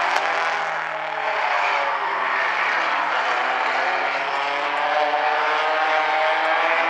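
Engines of a field of Bumblebee-class race cars running together at racing speed around the oval, several engine notes overlapping in a steady drone.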